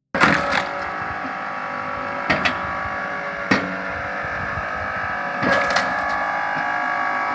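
Geared log splitter running steadily under load as wood cracks and splinters apart, with sharp cracks about half a dozen times over the steady machine sound.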